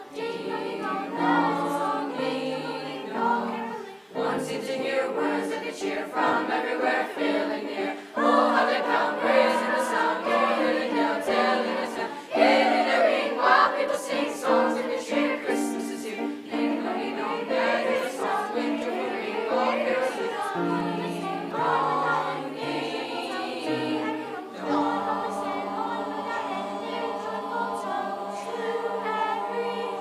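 School choir of boys and girls singing a holiday song together, sustained sung phrases with short breaks for breath between them.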